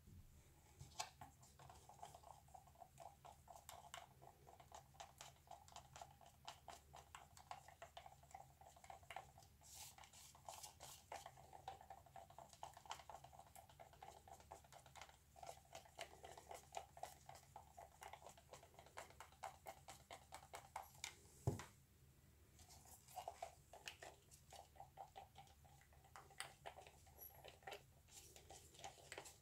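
Faint, rapid clicking and scraping of a wooden craft stick stirring thick acrylic paint in a plastic cup, with one sharper knock about two-thirds of the way through.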